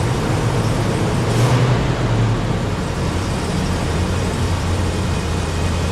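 Ram 2500 pickup engine running steadily after starting on a newly installed starter.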